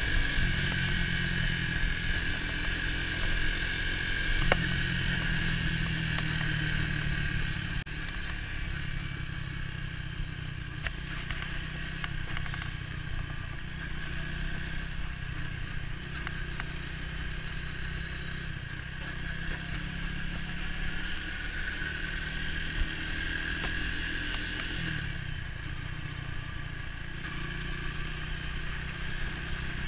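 Orcal Astor 125 motorcycle engine running under way. The engine note drops back about eight seconds in and climbs again as it revs up near the end.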